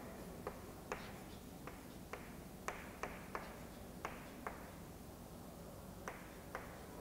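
Chalk writing on a chalkboard: faint, short taps of the chalk hitting the board, about three a second, then a pause of over a second before two more near the end.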